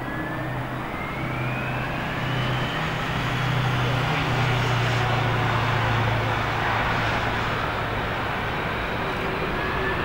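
Boeing 747-400's four turbofan engines spooling up to takeoff thrust: a rising whine over a low hum, growing louder about two to four seconds in, then holding steady, with the whine climbing again near the end as the takeoff roll begins.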